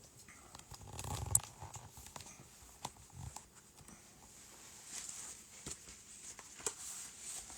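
Faint handling noises: light rustling and scattered small clicks, with a soft thump and a sharp click about a second in.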